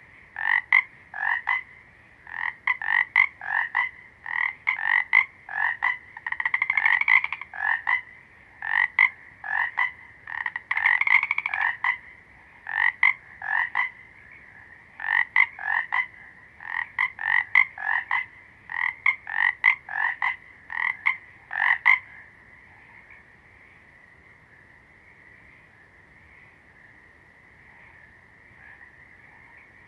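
Frogs croaking in quick runs of short, sharp calls. About 22 seconds in the croaking stops, leaving a faint steady background chorus.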